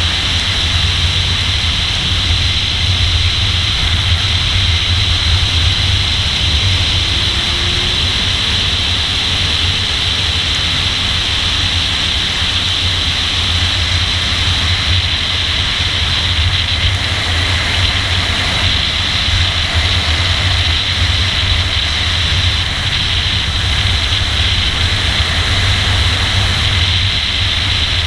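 Car running at speed on a race track, heard from a camera on its hood: a steady, loud mix of engine, wind and road noise with a low rumble, holding nearly even with no clear gear changes.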